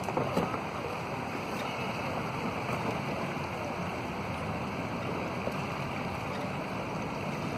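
Steady rush of shallow river water flowing past, with a light paddle splash near the start.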